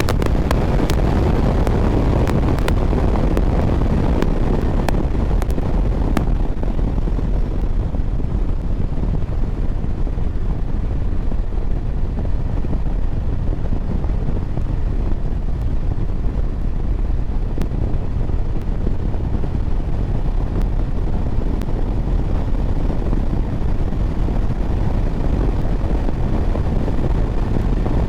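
2024 Harley-Davidson Road Glide's Milwaukee-Eight 117 V-twin running at highway speed, with steady wind rush on the rider's microphone. The wind noise eases a little after about six seconds.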